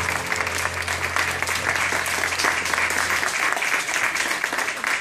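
Audience applauding, with a low held note from the band dying out underneath and stopping about three seconds in.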